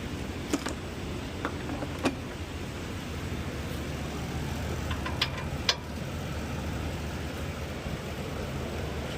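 A few sharp metallic clicks and clinks of hand tools on the truck's front brake and hub hardware: about five, the loudest about half a second, two seconds and nearly six seconds in. Under them runs a steady low shop hum.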